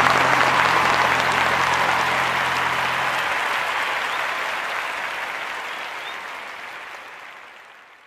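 Audience applauding, the clapping dying away gradually and fading out at the very end.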